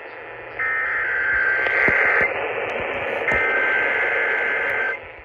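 Emergency Alert System SAME header over a radio receiver: two bursts of warbling two-tone digital data, each about a second and a half long with a gap between, over steady radio static. It is the coded start of an incoming severe thunderstorm warning.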